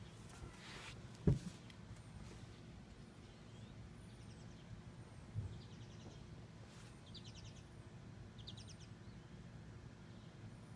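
Outdoor ambience: a steady low rumble with faint bird chirps here and there. A single sharp knock about a second in, and a softer one in the middle.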